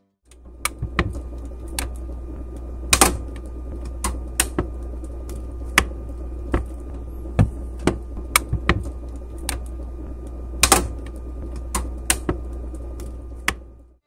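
LG refrigerator's plastic parts giving sharp, irregularly spaced cracks and pops over a steady low hum. This is thermal expansion noise: the plastic components contract and expand as the temperature changes.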